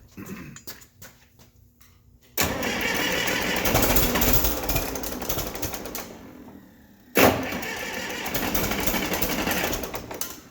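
The diesel engine of a 1959 Case 800 tractor being cranked over by its starter in two attempts, about four seconds and then about three, each starting abruptly and dying away without the engine running on. The fuel system has just been bled, and the owner suspects injectors 1 and 2 are opening too early.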